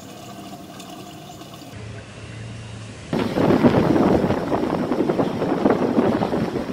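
Strong wind buffeting the microphone over breaking surf; it cuts in suddenly about three seconds in after a quieter stretch.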